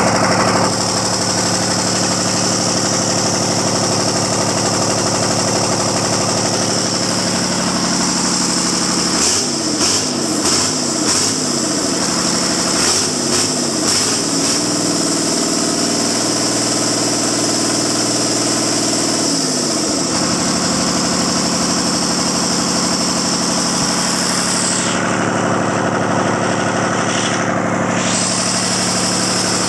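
Caterpillar 3046 inline six-cylinder diesel engine running on a test stand, mostly at a steady idle. About ten seconds in it is revved up and down several times, held at a different speed for about five seconds, then settles back to idle.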